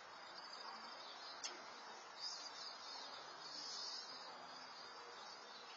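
Faint outdoor ambience picked up through a Nest security camera's microphone: a steady hiss with a few high chirps about two seconds in and again near four seconds, and a single sharp click about one and a half seconds in.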